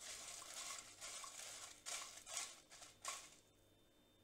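Silicone spatula stirring whole dried red chillies, spice seeds and garlic cloves as they dry-roast in a nonstick pot: a faint dry rustling and scraping with a few louder strokes, stopping about three seconds in.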